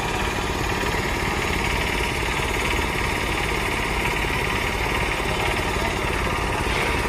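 Small engines of motorised railway track trolleys running steadily, with a fast, even pulse.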